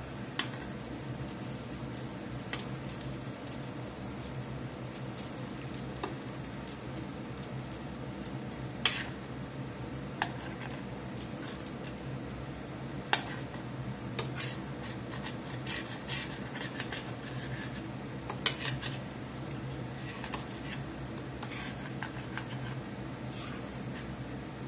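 Metal spoon stirring a thick stew in a stainless steel stockpot, clinking sharply against the pot's side every second or few, over a steady low hum.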